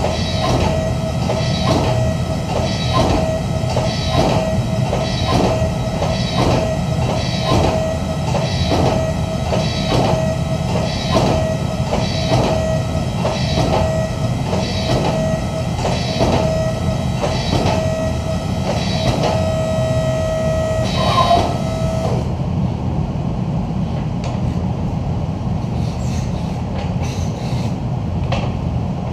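Hydraulic forging press drawing out a red-hot Damascus billet in quick repeated strokes, about three every two seconds, over the steady hum and whine of its pump motor. The strokes stop about three quarters of the way through, leaving the motor humming.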